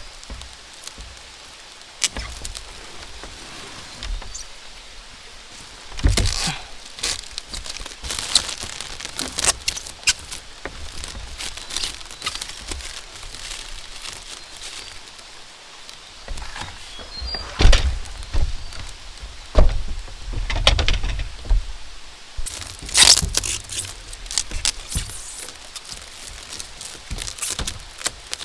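Irregular knocks, taps and heavier thunks from hand building work with bamboo, over a steady background of rain.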